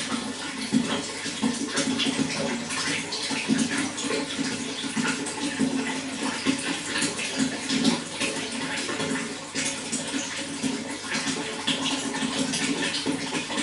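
Water running steadily, a continuous rush with a low gurgle and many small irregular splashes.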